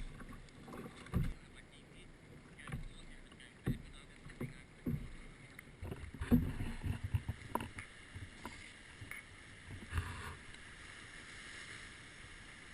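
Sea kayak on choppy water in strong wind: irregular low knocks and splashes against the hull, with wind noise on the microphone.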